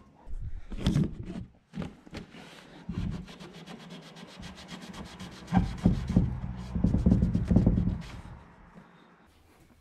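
Cloth rag rubbing and scrubbing against a wooden table leg and the bench top, wiping off wood glue after a glue-up. The strokes are irregular, with a quick back-and-forth run in the middle and the heaviest scrubbing in the second half, dying away near the end.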